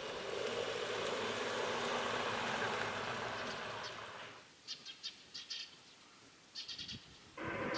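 An outdoor public-address loudspeaker chime's last notes wash out in a long echo and fade away. Then a few short, high bird chirps come in small clusters, and near the end the loudspeaker chime's melody starts again.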